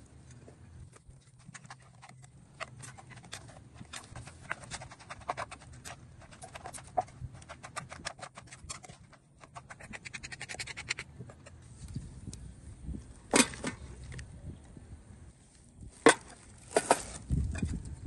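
Rapid knife taps and scraping as green papaya is shredded by hand, then a few louder knocks of a wooden pestle in a mortar with a spoon scraping while the papaya salad is pounded and mixed.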